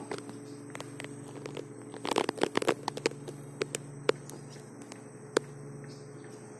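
Footsteps crackling on dry twigs and leaf litter, a quick run of them about two seconds in, over a faint steady low hum.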